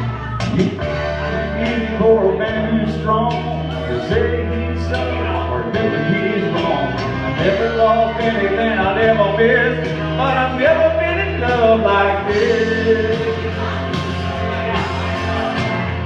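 Karaoke backing track of a rock ballad playing loudly, with a man singing into a microphone over it.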